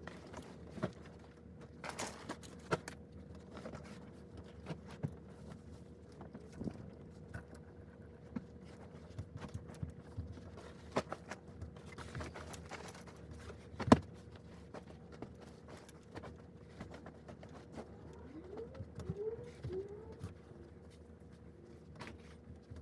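Bedding being handled as a bed is made: quiet rustling of sheets and comforter with scattered soft thumps and knocks as pillows are tossed into place, one sharper knock about halfway through, over a faint steady hum.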